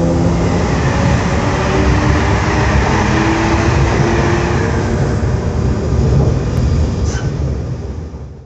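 Z 20679, a Z 20500-series double-deck electric multiple unit, running: a loud, steady hum and noise with several whining tones, fading away over the last two seconds.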